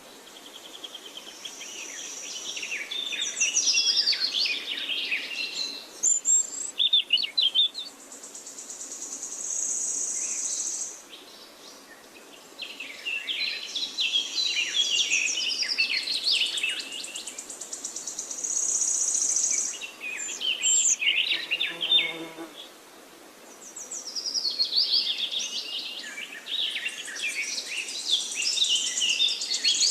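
Forest birdsong: several small birds chirping and singing in busy bursts, alternating with a steady high insect buzz of a couple of seconds. The pattern recurs about every ten seconds, with a short lower call about two-thirds of the way through.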